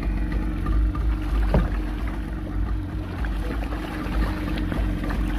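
Small fishing boat's engine idling with a steady hum over a low rumble, and splashing from a hooked mahi-mahi (dolphinfish) thrashing at the surface beside the hull near the end.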